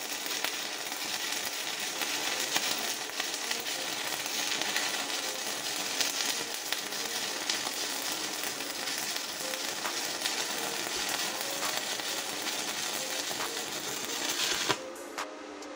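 Stick-welding arc of a 3 mm UONI-13/55 electrode on a Bord 250H welder: a steady crackling sizzle as rebar is welded to a 4 mm plate, cutting off about a second before the end. The welder judges the current to have been set higher than needed.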